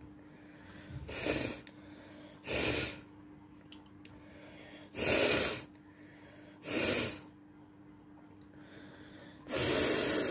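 A person blowing air hard through the nose five times, in short noisy bursts a second or two apart, the last one the longest.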